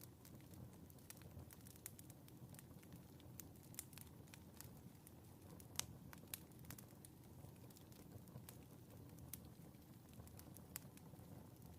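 Fireplace fire crackling faintly: scattered sharp pops and snaps over a low steady rumble, the sharpest pop about six seconds in.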